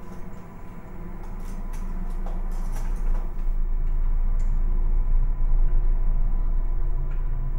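A low, steady rumbling drone that grows louder, with a few sharp clicks in the first few seconds.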